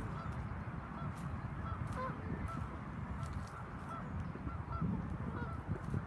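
A flock of geese honking, many short calls overlapping and repeating, over a steady low rumble.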